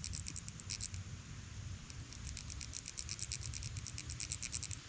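Two-penny squirrel call: the edge of one penny rubbed rapidly across the ridged Lincoln Memorial reverse of an older penny. It makes a fast, scratchy rasp of about eight strokes a second, with a short lull about a second in, imitating a squirrel chewing on a nut.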